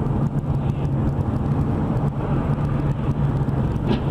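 Car engine and tyre noise from inside a moving car: a steady low hum over an even road rumble. A brief higher-pitched sound comes near the end.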